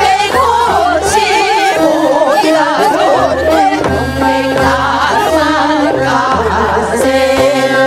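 Korean folk song (minyo) sung by a group of women into microphones, voices wavering in pitch, over steady instrumental accompaniment with a continuous bass.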